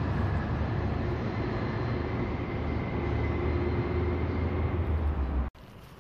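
Steady low rumble of vehicle noise with a faint high whine, cut off suddenly about five and a half seconds in.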